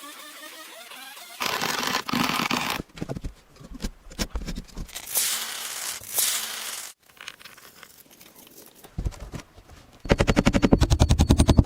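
Building work on a timber house: several short noisy bursts of handling and tool sound, then near the end a loud, rapid, even rattle of about a dozen strokes a second from a power tool.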